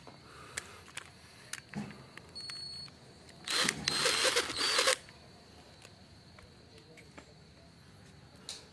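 A screwdriver working inside a plastic motorcycle handlebar switch housing: a few light clicks, then a noisy scraping burst of about a second and a half, starting about three and a half seconds in.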